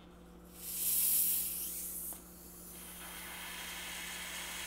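Gas hissing out as the top of a glass bottle of heavily carbonated, second-fermented water kefir is eased open: a loud, high hiss for about a second and a half that cuts off suddenly. It is followed by a steady fizzing as foam rises out of the neck.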